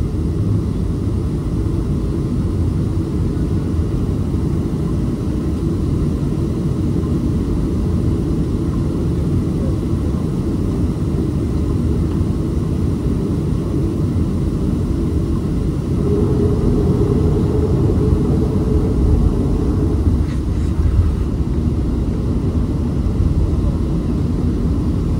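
Cabin noise of a Boeing 737-500 taxiing after landing: a steady low rumble from its CFM56 engines at taxi power and the rolling airframe. About two-thirds of the way through, a humming tone swells slightly louder for a few seconds.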